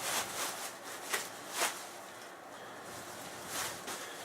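Cardboard box and its packing being handled and opened by hand: short bursts of rustling and scraping, a few at a time.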